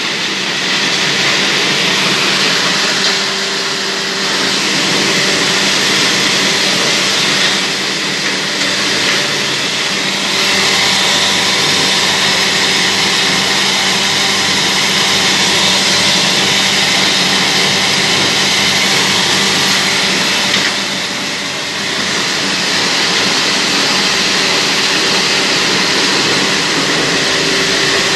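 Semi-automatic poultry feed plant machinery running as it grinds grain into feed: a loud, steady mechanical drone with a constant hum, dipping slightly for a moment about three-quarters of the way through.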